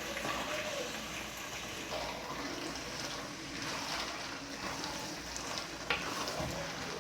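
Pot of cowskin (kanda) sauce simmering, a steady watery bubbling hiss, with one sharp tick about six seconds in.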